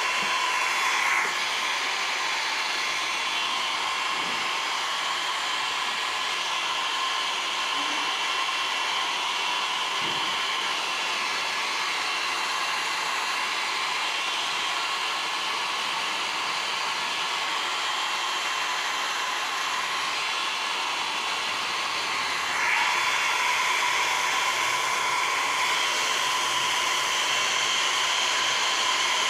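Philips hair dryer blowing steadily: a continuous rush of air with a steady whine. It gets a little louder about three-quarters of the way through.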